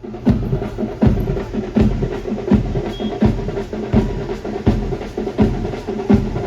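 Drum-led folk band music playing for a ghoda nacha (horse dance), with a steady drum beat struck about three times every two seconds.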